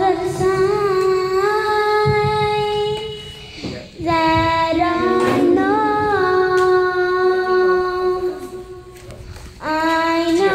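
A high voice singing slow, long-held notes in drawn-out phrases, with short breaks between phrases about three and a half seconds in and again near nine seconds.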